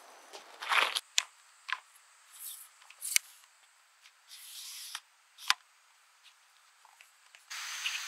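A footstep crunching on river gravel, then a few sharp clicks and short sliding rasps as tripod legs are unlocked and extended. Near the end a steady hiss of riverside ambience comes in.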